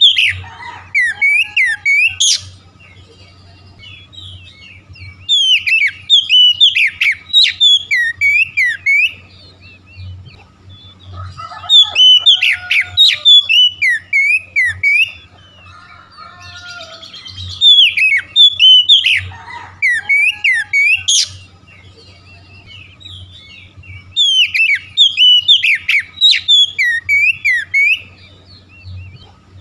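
Oriental magpie-robin (kacer) singing loudly: phrases of quick, varied whistled notes, each lasting a few seconds, repeat about every six seconds with short pauses between.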